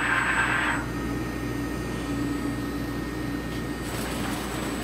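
Walter Helitronic Mini Power CNC tool and cutter grinder jogging its C axis, the swivelling workhead turning under servo drive with a steady machine hum. A hiss stops about a second in, and a faint steady whine sounds in the middle.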